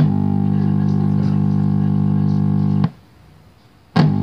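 Chinese Wcom-chassis CRT television giving off a loud, steady buzzing hum that cuts in suddenly, breaks off for about a second near three seconds in, then comes back. The hum is the set's fault, along with a scrambled picture and sagging current and voltage.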